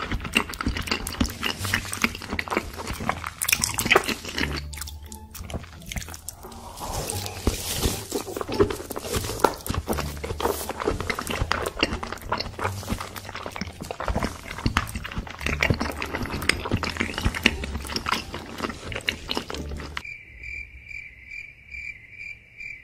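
Close-miked wet chewing and mouth smacking of a large mouthful of raw salmon sashimi, dense and continuous. About twenty seconds in the chewing stops and a cricket chirping sound effect starts, a high, evenly pulsed chirp.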